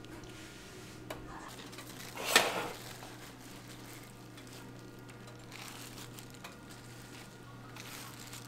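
Small kitchen handling sounds, mostly quiet, with tongs, food and a plastic tub being handled over a low steady hum. There is a small click about a second in and one sharp, loud clatter about two and a half seconds in.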